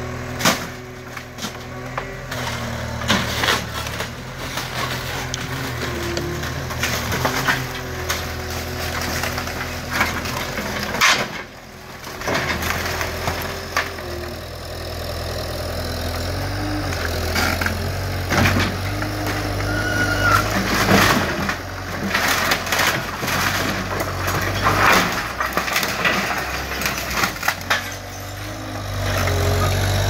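Skid steer's diesel engine running under load, its pitch stepping up and down, while wooden house framing cracks and debris crashes down in many sharp breaks.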